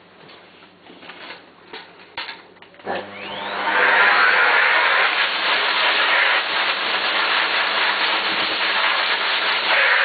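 A few handling clicks and knocks, then a vacuum cleaner is switched on about three seconds in. Its motor whines up to speed and then runs steadily.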